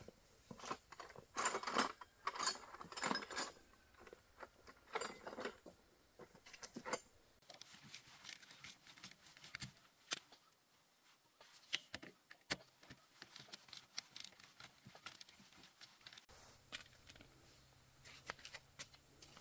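Metal hand tools clinking and a wrench clicking on a motorcycle's bolts: a string of sharp clacks, loudest in the first few seconds, then fainter scattered clicks.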